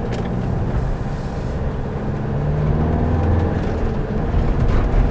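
Motorhome engine and road noise heard from inside the cab, the engine note rising as it pulls away and accelerates after a turn about halfway through.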